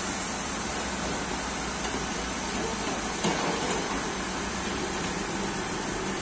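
Sawmill machinery running steadily between cuts: an even mechanical running noise with a constant high hiss, no cutting heard.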